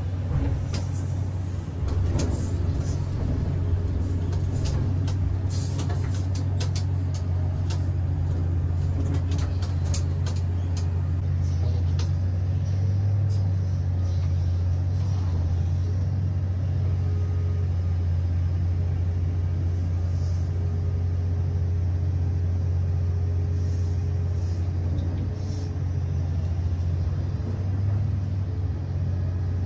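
Komatsu PC3000 mining excavator running as it works, heard from inside the cab: a steady low drone, with many sharp clicks and ticks over the first twelve seconds or so.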